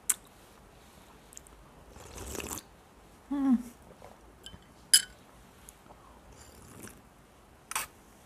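Eating chicken broth with a small metal spoon: quiet mouth and chewing sounds, a slurp about two seconds in and a short hummed "mm" a moment later, with a few sharp clinks of the spoon against the glass bowl, the loudest about five seconds in.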